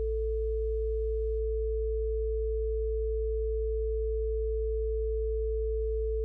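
Steady electronic sine tones: a low 55 Hz hum under a higher pure tone, both held without change. Faint background music fades out about a second in.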